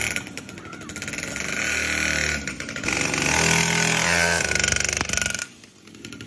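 Mini pocket superbike's small engine revving under a rider, its buzzy note rising and falling in pitch, then cutting off suddenly about five seconds in.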